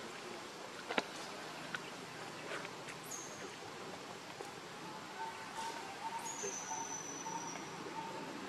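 Outdoor natural background of steady hiss with bird and insect calls. Two high, thin calls come about three and six seconds in, each dropping slightly in pitch, and a run of short repeated notes fills the second half. A single sharp click sounds about a second in.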